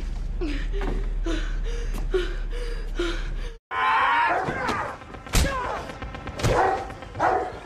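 Horror-film soundtrack: a steady low hum with a short sound repeating about twice a second. After an abrupt cut, a voice yells and two heavy thuds of blows land about a second apart.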